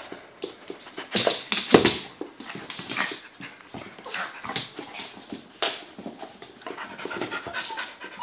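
Two dogs, a large short-haired dog and a small long-haired dog, play-wrestling, panting and huffing in irregular breathy bursts.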